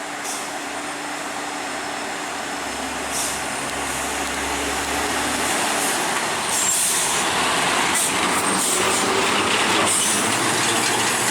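Heavy vehicle labouring up a steep climb, its engine and tyre noise growing steadily louder as it comes closer, with a few short high hisses along the way.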